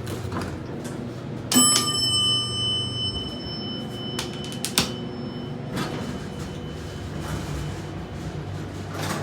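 Elevator hall arrival bell (a "dinner bell") struck once, ringing with several clear tones that fade over about two seconds, followed by a few short clicks.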